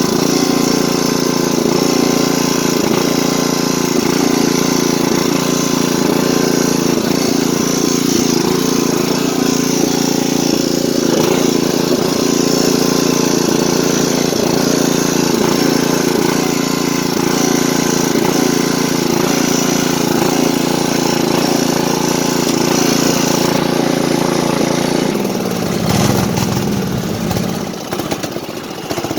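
A 1980s Craftsman riding lawn tractor's engine running steadily while being run dry to empty its fuel before winter storage. About 25 seconds in the steady running breaks up and the level falls away as the fuel runs out.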